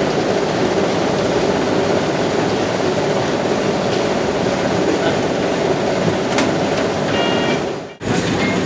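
Loud, steady mechanical noise of winery crush-pad equipment handling whole grape clusters being dumped into a fermentation tank. The noise drops out abruptly near the end.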